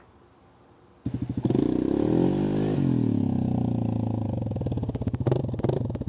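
A four-wheeler's (ATV's) engine revving, starting abruptly about a second in, its pitch climbing and then easing back down, before cutting off abruptly.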